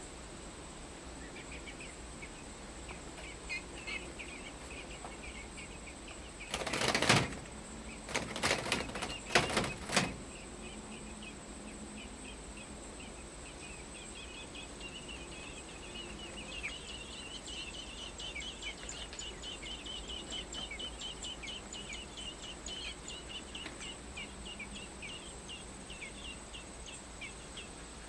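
Rapid runs of high, short chirps from a bird. About a quarter of the way in come a few seconds of loud rustling flutter, typical of an American robin fledgling shaking and flapping its feathers while preening in the nest. A faint steady high whine sounds throughout.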